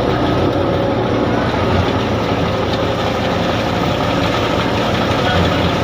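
Heavy farm machinery engine running steadily at an even speed during wheat harvesting.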